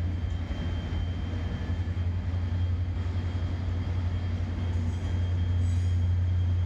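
Canadian Pacific freight train rolling past: a steady low rumble of the wagons on the track, with a thin steady high-pitched whine over it.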